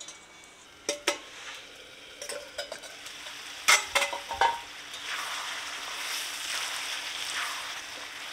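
Chicken pieces frying in spice paste in an iron kadai, sizzling steadily, while the meat is stirred and turned. A spatula knocks sharply against the pan about a second in and several times around the middle.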